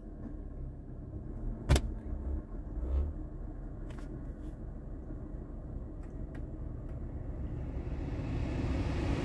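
Jaguar cabin with the engine idling and the climate control blower pushing air through the dash vents. There is a sharp click about two seconds in, and the rush of air grows steadily louder near the end.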